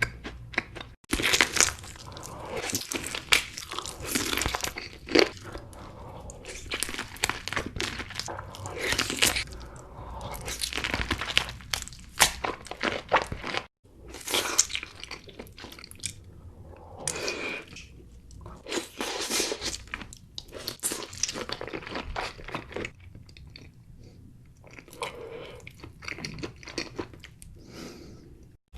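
A person biting and chewing crunchy food, with dense crisp crunching and two brief breaks in the sound.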